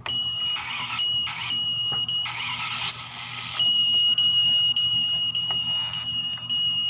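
Electronic sound effect from a toy garbage truck: a steady high-pitched beeping tone, with several short bursts of hiss in the first few seconds.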